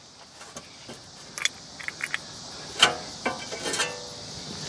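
Scattered light metallic clinks and scrapes, the loudest about three seconds in, as a rear brake caliper bracket is worked loose from the rotor and lifted away.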